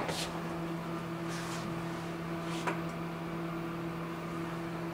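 Hissgruppen platform elevator humming steadily from its drive machinery: a constant low two-tone hum with a couple of faint clicks.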